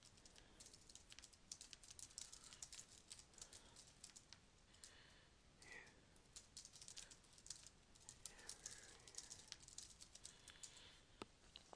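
Faint typing on a computer keyboard: a quick run of keystrokes as a line of text is typed.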